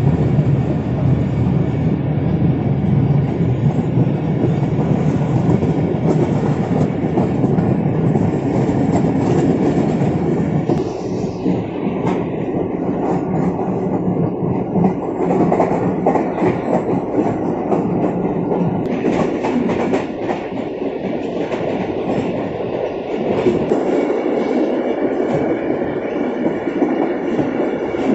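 Karachi Circular Railway passenger train running along the track, heard from on board: a steady rumble of the moving coach with wheels clicking over the rails.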